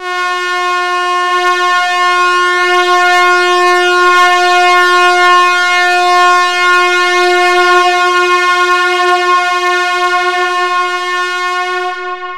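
One loud, steady horn-like tone held on a single pitch for about twelve seconds. It starts suddenly and fades away near the end.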